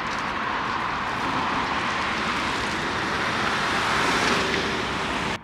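Steady road traffic noise, swelling a little about four seconds in and cutting off suddenly near the end.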